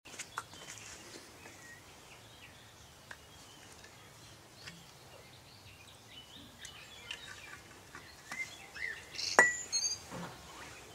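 Birds chirping in quiet outdoor surroundings, with a few small taps and, a little past nine seconds in, one sharp clink of glass that rings briefly.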